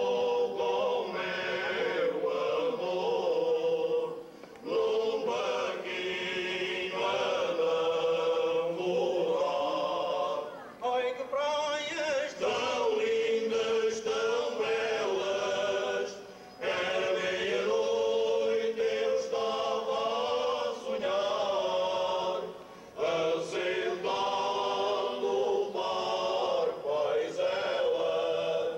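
Male choir singing together into microphones, in long sung phrases with a short break about every six seconds.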